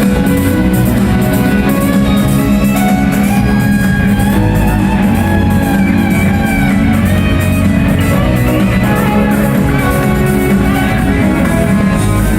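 Live funk band playing loud in an arena, electric guitar riffs over bass and drums, recorded on a phone's microphone.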